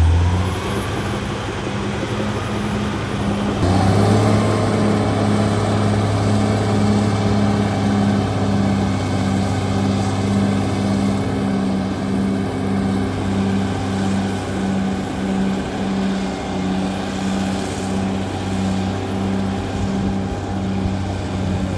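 Caterpillar D6R XL bulldozer's diesel engine running steadily, a low hum with a regular throb about twice a second. It grows louder and fuller about four seconds in.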